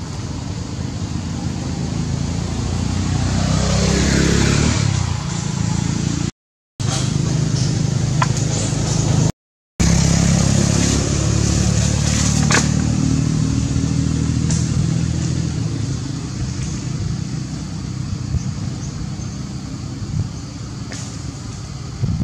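Motorbike engine running nearby, growing louder over the first few seconds and slowly fading toward the end. The sound cuts out briefly twice.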